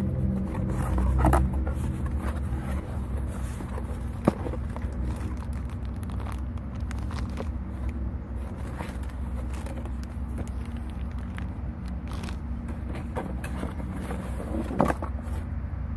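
Cardboard packaging and plastic bags handled during an unboxing, with scattered rustles and scrapes and a sharp click about four seconds in. A steady low rumble runs underneath.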